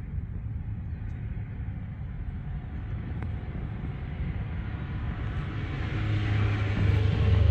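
Volvo T5 turbocharged five-cylinder engine running with a low rumble that grows louder about six seconds in. The engine is the one presented as having piston slap.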